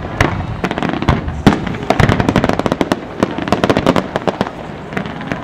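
Display fireworks going off in a rapid, irregular barrage of sharp cracks and bangs over continuous crackling, with a few louder reports standing out.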